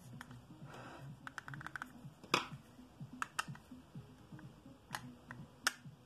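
Hard plastic clicks and taps from the plastic gear housing and parts of a coffee grinder's gearbox being handled and worked with a screwdriver during reassembly. A quick run of fine ticks comes about a second and a half in, then single clicks spaced a second or so apart.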